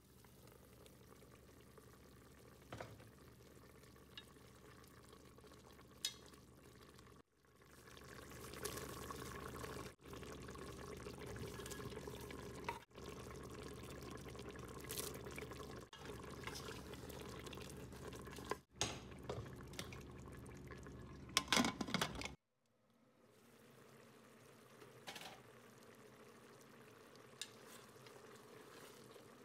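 Faint cooking sounds at an open pressure cooker of lamb broth: liquid bubbling with scattered clicks and knocks as salt, carrots and raisins are added and stirred in. The sound is louder and busier in the middle and breaks off abruptly several times.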